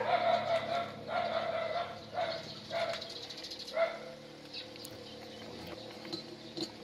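An animal calling five times in quick succession, drawn-out even-pitched cries, the first two nearly a second long, the last three short, dying away after about four seconds.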